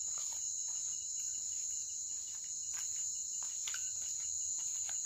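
Night chorus of crickets: a steady, unbroken high-pitched trilling, with a few faint clicks over it.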